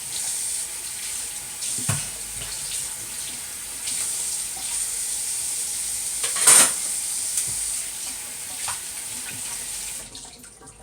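Kitchen tap running steadily into a sink during washing up, with a few knocks of pots or dishes, the loudest about six and a half seconds in. The water stops near the end.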